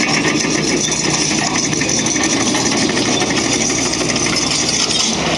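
Heavy road-works machine running steadily, its engine note mixed with continual rattling and small clicks.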